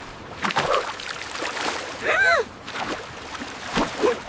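Water splashing and sloshing, with a short rising-and-falling cry about two seconds in and a smaller one near the end.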